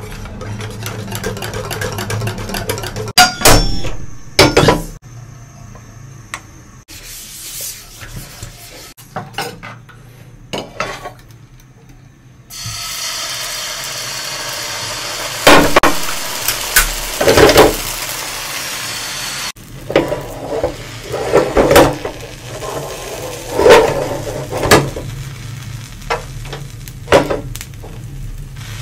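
Kitchen sounds in several short cuts. A steel balloon whisk clicks rapidly against a glass bowl as batter is beaten. Later comes a steady hiss of thin batter cooking in a hot nonstick frying pan, with several sharp knocks of utensils and bowl against the pan and stove.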